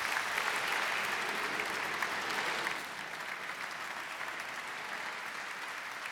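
Audience applauding, a dense steady clapping that eases a little about three seconds in and carries on.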